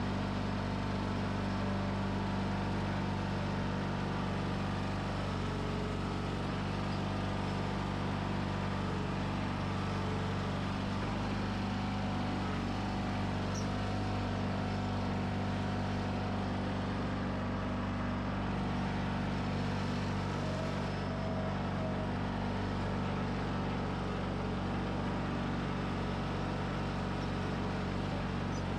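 John Deere 420 garden tractor's two-cylinder Onan engine running at a steady speed as the tractor drives along, with an even, unchanging engine note.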